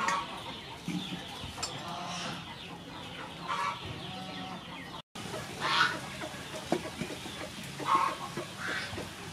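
Chickens clucking, several short calls spread through, with a few light knocks about two-thirds of the way in.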